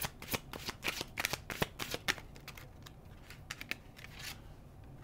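Tarot cards being shuffled: a quick run of card flicks and snaps for about two seconds, thinning out into a few scattered taps.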